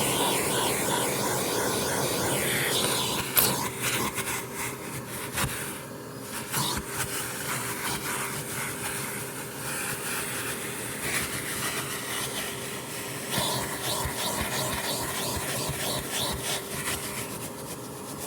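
Vacuum cleaner running with a steady whooshing hiss and a steady whine, with scattered clicks and knocks as it is worked along. A sharp knock about three and a half seconds in, after which it runs slightly quieter.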